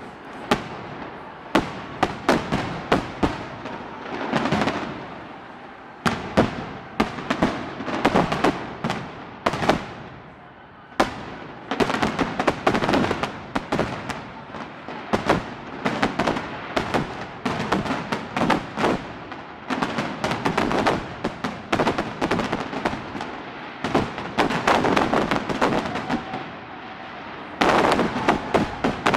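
Fireworks display finale: a rapid barrage of bangs and crackling shell bursts, with a brief lull a little past halfway and a denser, louder volley near the end.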